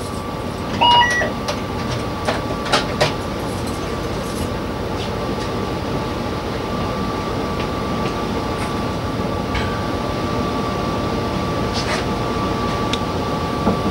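Cab of a Y2 diesel multiple unit standing at a station with its engine running: a steady hum with a thin high whine throughout. A short two-note electronic beep about a second in, followed by a few sharp clicks.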